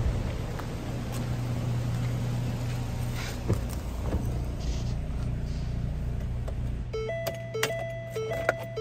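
2009 Ford Focus 2.0-litre four-cylinder engine idling steadily. About seven seconds in it is switched off, and the car's electronic warning chime starts repeating, with a few clicks.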